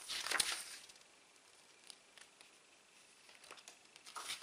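Rustling and light clicks of a K-pop album's paper pages and packaging being handled. A brief burst comes at the start and another near the end.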